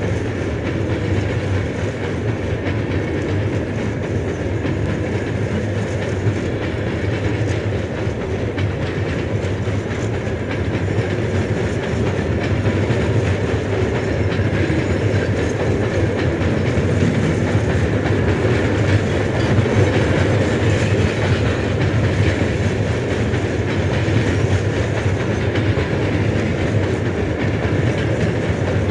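A train running steadily on the rails, played back from a train-sounds vinyl record on a turntable; it grows a little louder after about twelve seconds.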